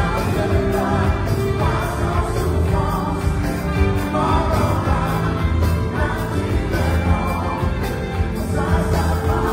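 Live band music with singing, over electric guitar, keyboard and drums, with a steady pulsing bass.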